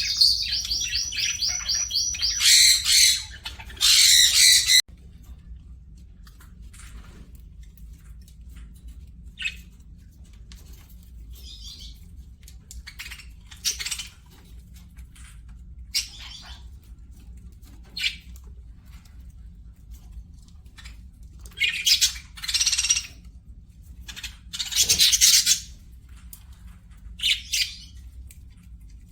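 Pet birds calling: a fast trill of rapidly repeated high notes, cut off abruptly about five seconds in, then scattered short chirps, with a few louder harsh squawks near the end.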